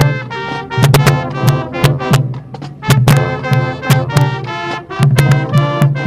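High school marching band playing its show: brass horns sounding chords over sharp drum hits.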